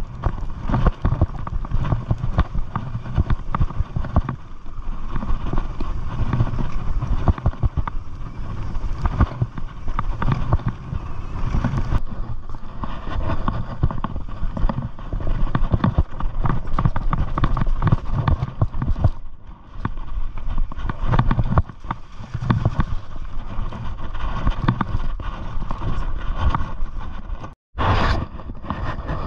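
Mountain bike riding down a dirt trail: tyres crunching on the dirt and the bike rattling and clattering over bumps, over a steady low rumble. The sound cuts out for an instant near the end.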